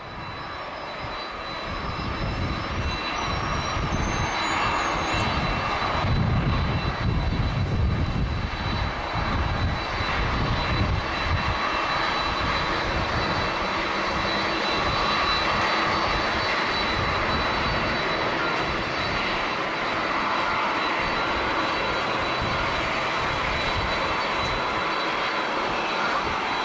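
Jet airliner engines running, building over the first several seconds and then holding steady, with a high whine that climbs in the first few seconds.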